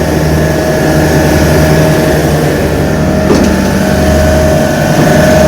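Carrier 30GT air-cooled chiller running: its compressors make a loud, steady machine drone with a steady whine over it. There is a brief knock a little over three seconds in.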